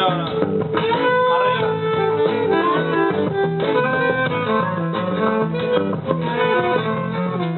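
Live band music at a rehearsal: guitar playing under a melody line of held notes that move from pitch to pitch, played continuously.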